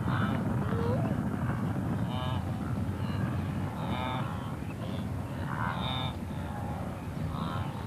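Wildebeest herd calling: repeated short nasal grunts from many animals over a steady low rumble.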